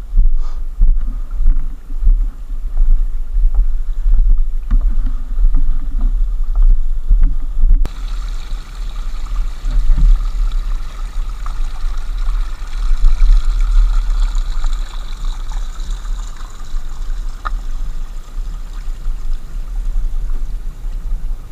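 Heavy, gusting wind rumble on the camera microphone of a moving enduro motorcycle, with the engine buried beneath it.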